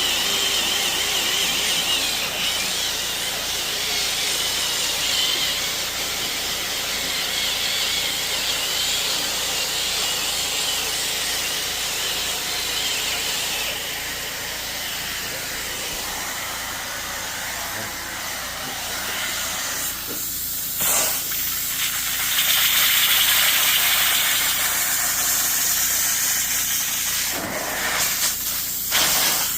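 Upholstery cleaning machine hissing steadily as it works the fabric. It breaks off briefly about two-thirds of the way through and again near the end.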